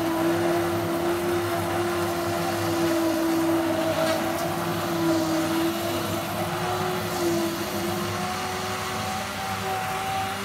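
Electric hand blender running in a steel pot of milk, chocolate and ice: a steady motor whine, its pitch creeping up a little after about seven seconds.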